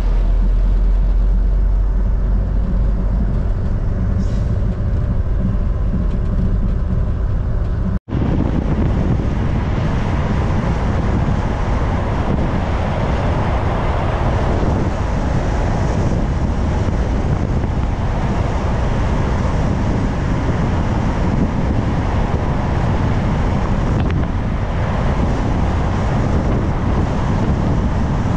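1998 Sprinter motorhome driving on the road: a steady low engine drone with road noise, then, after a sudden break about 8 seconds in, an even rush of road and wind noise.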